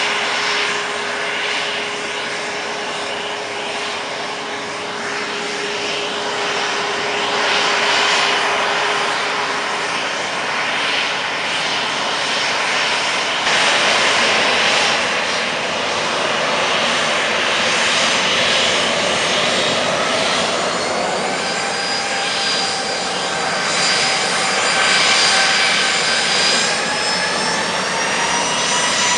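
Boeing 737 airliner's turbines running on the stand with a loud, steady whine and rush. From about two-thirds in, several whines climb slowly in pitch, as an engine spools up.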